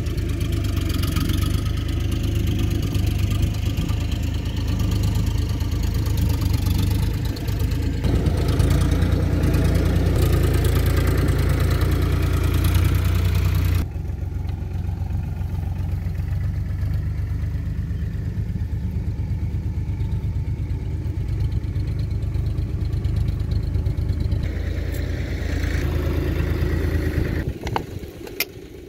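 An engine running steadily at idle, a loud low hum that steps up and down abruptly in level about 8 and 14 seconds in. A few sharp metallic clicks come near the end.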